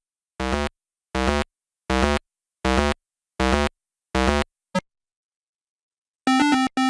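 Short electronic synthesizer notes, six in an even row about three-quarters of a second apart, each cut off sharply. A brief blip follows, then a pause, then a quicker run of notes begins near the end.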